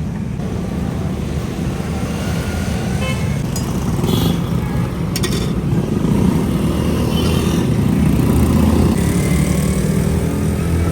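Street traffic: the steady low rumble of passing motorbike and car engines, with a sharp click about five seconds in.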